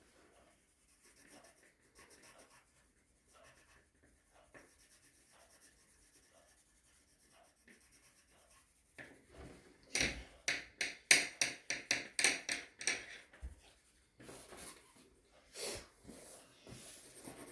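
Graphite pencil shading on paper: faint scratching strokes, then about ten seconds in a few seconds of quick, louder back-and-forth strokes, and a few more near the end.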